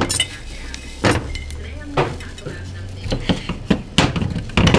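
Handling a spoon, a ceramic bowl and a glass jar: scattered clinks and knocks, a few times a second apart, as a utensil taps against the bowl and jar. Near the end come the knocks of a plastic spice grinder being handled.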